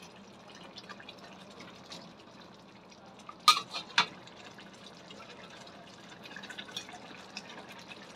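Thick rendang sauce bubbling gently in a metal wok over low heat, a soft steady patter of small pops. About three and a half seconds in, two sharp clicks of the metal spatula knocking against the pan.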